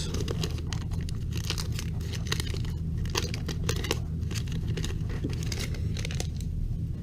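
A paper wrapper on a pack of baseball cards being torn open and crinkled: a run of crackly tearing and rustling over a steady low hum.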